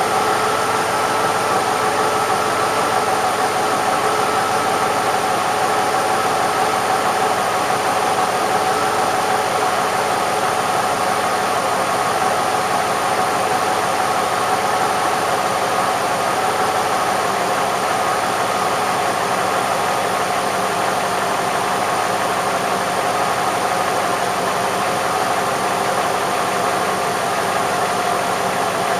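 Rebuilt Cadillac Northstar 4.6-litre V8 running steadily at idle, its pitch easing slightly lower over the stretch.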